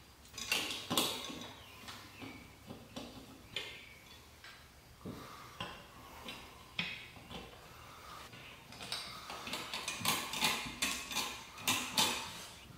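Handling noise of a ceiling fan's motor housing being hung on its ceiling mounting bracket while its lead wires are fed past: irregular clicks, light knocks and rustles of hard plastic and metal parts. The clatter is thickest about a second in and again toward the end.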